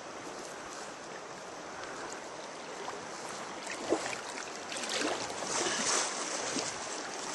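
River current running over the surface with steady rushing and lapping, broken by a few short splashes about four to six seconds in.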